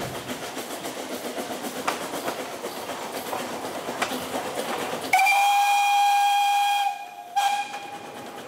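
Whistle of a narrow-gauge Bn2t steam tank locomotive: one long steady blast of just under two seconds, then a short second toot. Before it, the train runs along the track.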